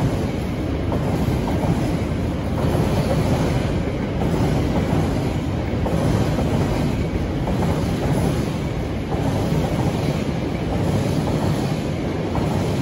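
Freight train of open box wagons and container flat wagons passing close by: a steady noise of steel wheels running on the rails, with some clatter over the rail joints.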